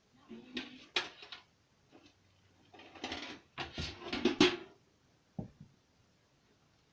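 Rummaging for a lotion bottle: clusters of clattering knocks and rustling, then a single knock about five seconds in.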